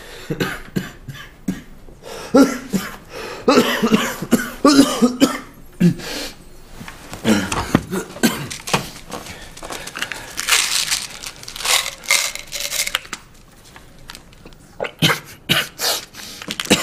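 A man coughing over and over in fits of short, harsh coughs, with brief pauses between bouts.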